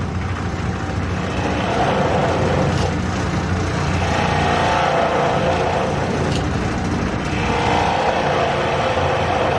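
Wood lathe running with a steady motor hum while a turning tool cuts the inside of a faceplate-mounted blank; the cutting noise grows louder twice, in the middle and near the end.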